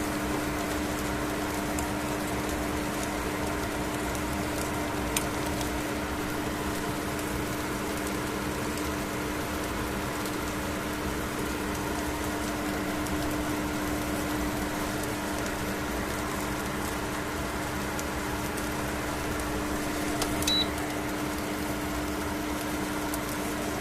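Microwave oven running with a steady electrical hum. There is a brief high beep about twenty seconds in.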